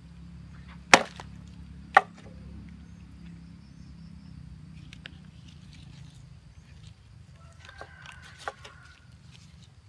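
Two sharp chops of a machete blade through fish onto a wooden board, a second apart, followed later by a few lighter knocks and scrapes of the blade.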